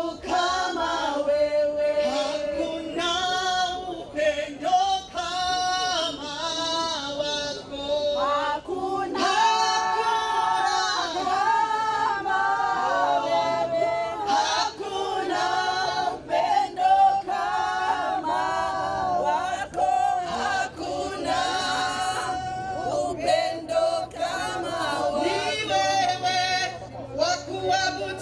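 A group of men and women singing together, one melody carried by several voices at once.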